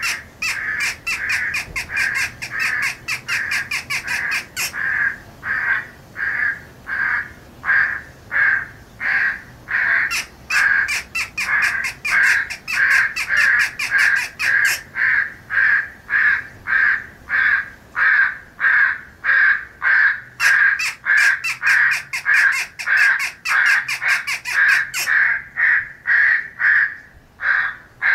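Crows cawing in a long, steady series, about two to three caws a second with no pause. It is a 'morning call' of feeding corvids, recorded as a sound file for an electronic crow caller used in hunting.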